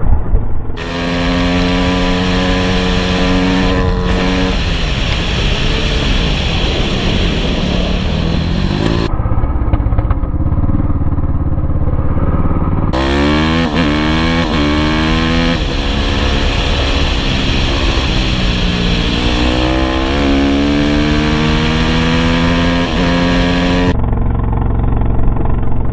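Dirt bike engine at high revs, its pitch climbing again and again as the rider accelerates and shifts up through the gears. It is heard from the rider's helmet camera with wind noise, and the audio cuts abruptly a few times.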